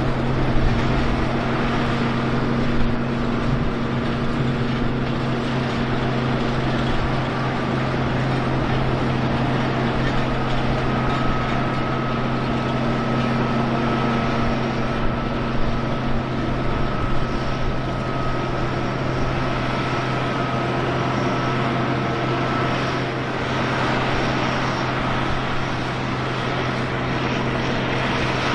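Heavy harvest machinery running steadily: a constant low engine drone with a faint high whine through the middle.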